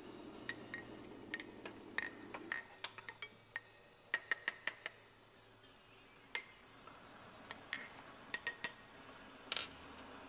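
Scattered light clinks and clicks at irregular intervals, several in quick succession around the middle and again near the end, over a faint low hum that fades out in the first few seconds.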